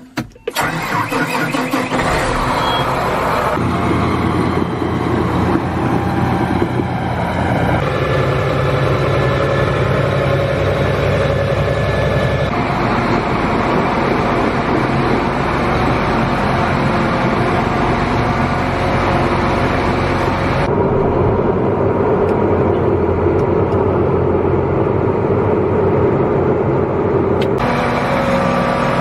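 John Deere 8285R tractor's diesel engine starting up and then running steadily, its note shifting abruptly several times.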